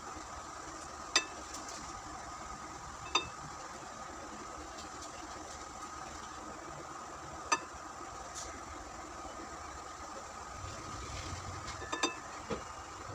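Kitchen utensils clinking sharply against dishes about five times, spaced a few seconds apart with two close together near the end, over a steady background hum.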